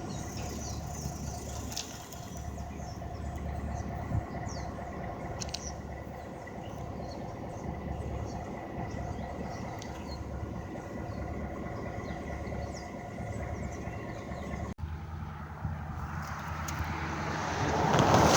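Vehicle engine idling steadily with a low hum. After a brief break late on, a rising rush of noise builds to its loudest at the very end.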